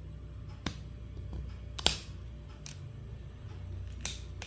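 Plastic clips of a Redmi 2's housing snapping loose as a metal pry tool is levered around the edge: four sharp clicks, the loudest a double snap a little under two seconds in.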